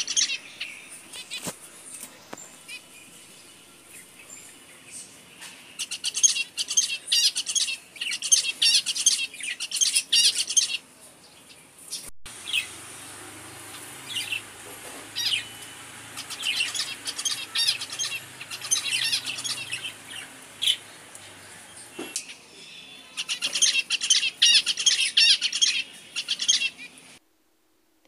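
Male zebra finch singing: three bouts of rapid, high-pitched song with short quieter gaps between. This is the song that only an adult male zebra finch sings.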